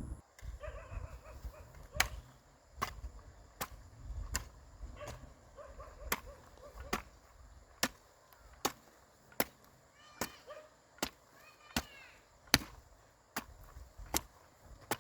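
Steady chopping, one sharp strike about every 0.8 s, beginning about two seconds in.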